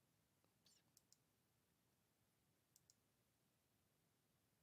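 Near silence, with a few faint computer mouse clicks, including two quick double clicks, one about a second in and one near the three-second mark.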